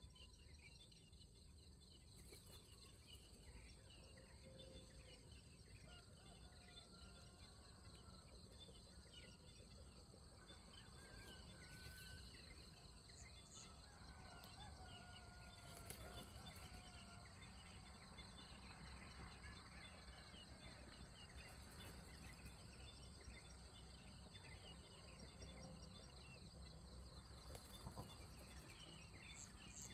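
Faint outdoor insect chorus, a steady fast chirring, with a few distant birds calling in short wavering notes through the middle.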